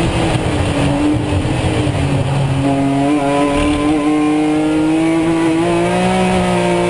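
BMW Z4 M Coupe race car's straight-six engine, heard from inside the cockpit: the engine note drops over the first two seconds or so, then climbs slowly and steadily under power.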